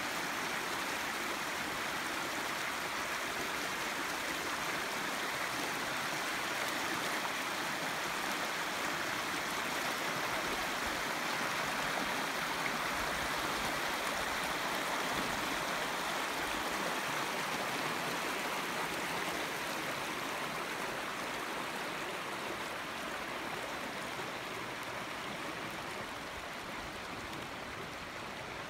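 Shallow river water running over rocks and a stony bed: a steady rush of flowing water, easing off slightly near the end.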